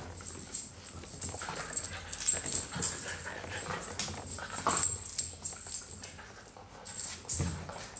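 Two young beagles play-fighting on a tile floor: claws clicking and scuffling on the tiles, with a few short whines.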